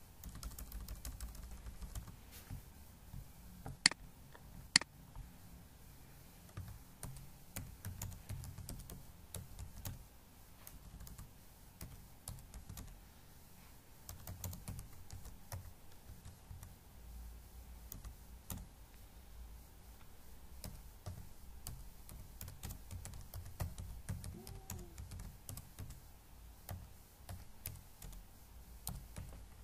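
Typing on a computer keyboard: a long run of light key clicks, with two sharper, much louder clicks about four and five seconds in.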